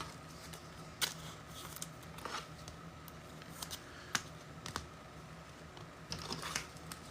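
Trading cards being handled: a few faint, scattered clicks and light rustles as cards are slid and flipped.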